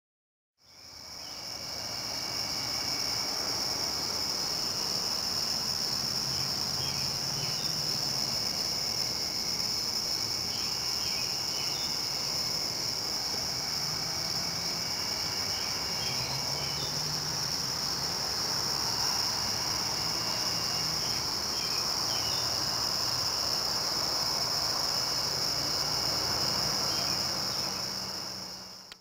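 Chorus of crickets and other night insects: a steady high trill, with fainter separate chirps coming and going.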